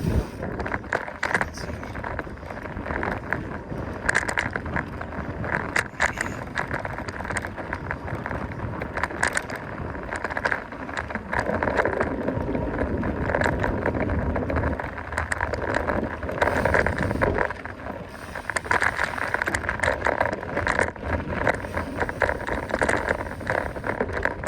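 Mountain bike riding over a rough trail: tyres rolling and crunching on the ground, with the frame and chain rattling and knocking over bumps.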